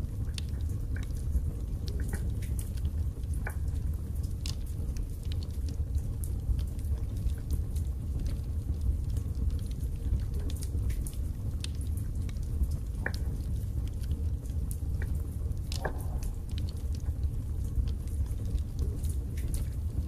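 Wood fire burning in a fireplace: a steady low rumble of flames with irregular crackles and sharp pops from the burning split logs, one louder pop about three-quarters of the way through.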